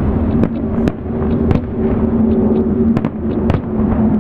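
Fireworks shells bursting in a string of sharp bangs, about five of them loud and several smaller, over a steady low tone.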